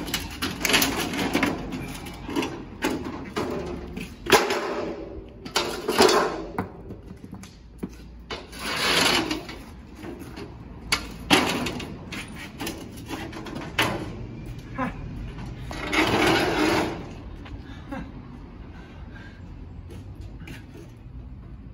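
Scrap metal being pulled from a river, clattering and knocking repeatedly, with several short rushes of noise in between; it grows quieter in the last few seconds.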